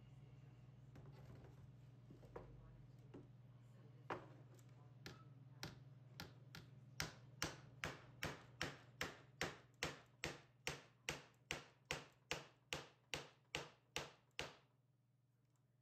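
Wide-faced hammer driving a silicone bronze ring nail through an ash canoe inwale into a rib, with a wooden block held behind it. A few scattered taps come first, then a steady run of about two and a half blows a second that stops about a second before the end.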